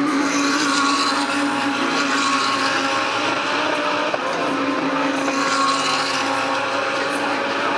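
GT3 race car engines running hard on track, several engine notes overlapping and shifting in pitch. The sound swells twice, about half a second in and again about five and a half seconds in, as cars come by.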